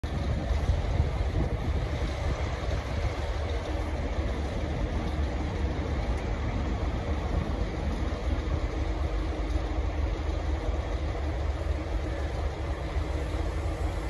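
Steady low rumble of a V/Line N class diesel locomotive's engine as it moves slowly along the track, mixed with wind buffeting the microphone.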